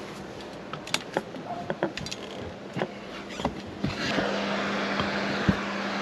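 Knocks and scuffs of shoes and hands on a metal RV ladder during the climb. About four seconds in, the steady hum and whoosh of a neighbouring RV's rooftop air conditioner comes up louder as the roof is reached.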